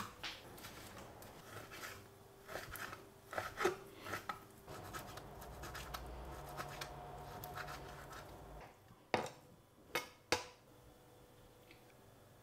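Kitchen knife cutting raw chicken on a plastic cutting board: scraping and light taps of the blade. Near the end come three sharp knocks.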